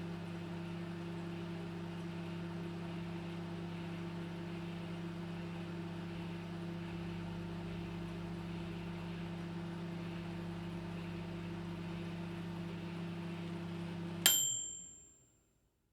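Microwave oven running with a steady hum, which cuts off about 14 seconds in as a single bell ding sounds and rings out: the cooking cycle has finished.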